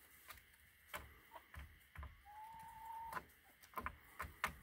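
Hens pecking and scratching at feed, a string of faint ticks and knocks, with one drawn-out, slightly rising high call about two seconds in.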